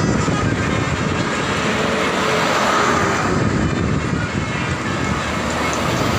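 Loud, steady engine and road noise of a large bus close by.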